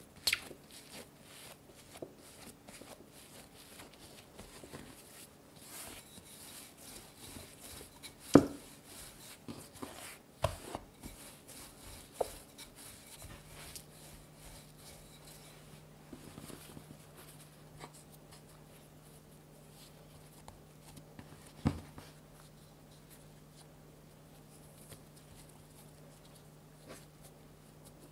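Hands working soft bread dough on a wooden cutting board: quiet pressing and rubbing, a wooden rolling pin rolling it flat, and folding for shaping the loaf. A few sharp knocks on the board stand out, the loudest about eight seconds in.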